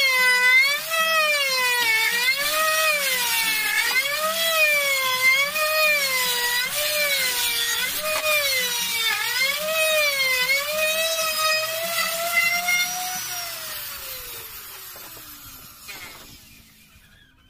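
Electric wood router cutting a tenon in a wooden door piece, its motor whine dipping in pitch and recovering about once a second as the bit is pushed into the wood. A few seconds before the end it is switched off and winds down, the whine falling steadily in pitch and fading away.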